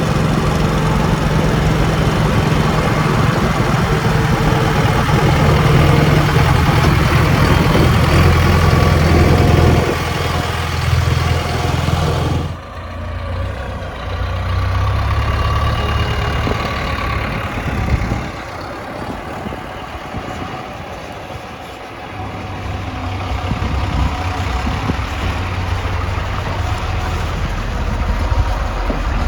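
Diesel engine of a JCB 3DX backhoe loader running under working load, its low hum rising and falling in level as it works. The sound changes abruptly about twelve seconds in, then the engine runs on more quietly, dipping for a few seconds before picking up again.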